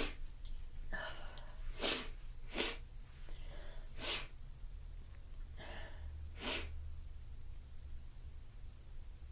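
A person's nose making short, sharp sniffs and snorts, about five of them, with fainter breaths between, between sneezes.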